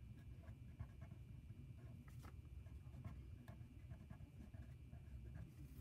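Faint scratching of a pen writing on notebook paper in short, irregular strokes, over a low room hum.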